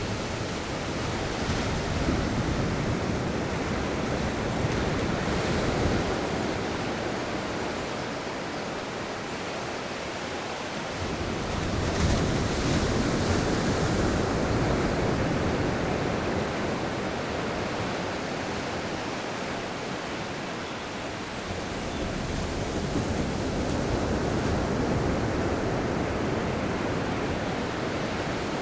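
Sea waves breaking and washing on a beach, with wind. The rush of surf swells louder every several seconds as each wave comes in.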